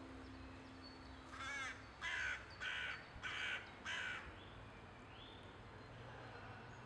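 Crow cawing five times in quick succession, harsh calls about half a second apart, followed by a fainter rising call.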